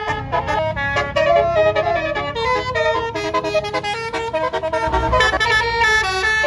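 Bus 'basuri' musical horn playing a fast multi-note tune, the notes changing several times a second, over a low rumble.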